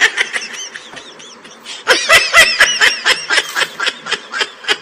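A child giggling in short repeated runs, near the start and again about two seconds in, over sharp crunches of a crisp fried papad being bitten and chewed.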